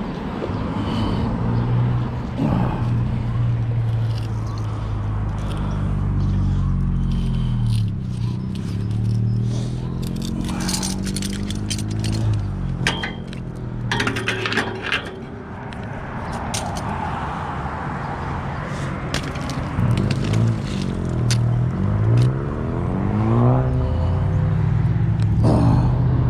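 Car traffic passing close by, with engine pitch rising and falling. Around the middle come a series of scrapes and clanks as a mud-caked bicycle pulled up on a magnet-fishing rope knocks and drags against the bridge wall and railing.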